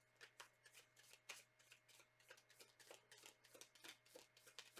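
Tarot deck being shuffled by hand: a faint, irregular run of card clicks and slaps, a few a second.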